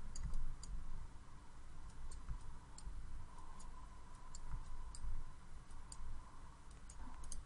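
Computer mouse button clicking, about a dozen light clicks at irregular intervals, over a low steady background hum.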